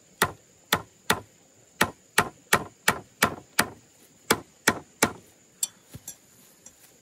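Claw hammer nailing into a peeled wooden pole: about a dozen sharp strikes in three quick runs of three or four, roughly three a second, then a couple of lighter knocks near the end.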